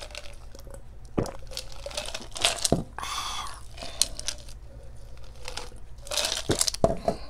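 Drinking from a clear plastic cup of ice: ice cubes knocking and shifting against the cup, with sips and a scattering of crunchy clicks.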